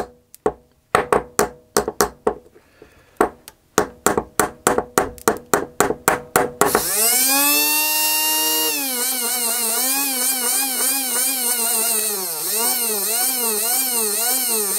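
Small brushed electric motor from a Kyosho starter box on a 12 V battery: first a run of sharp crackling snaps as the clip sparks on the battery terminal without the motor turning. About seven seconds in, the motor catches and spins up into a high whine that then wavers up and down. Its reluctance to start until jolted is what the owner puts down to a flat spot in the motor.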